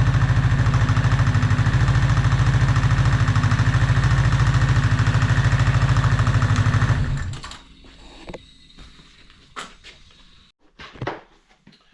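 A motor running loudly with a fast, even pulse and a low hum, stopping about seven seconds in. A few light knocks follow.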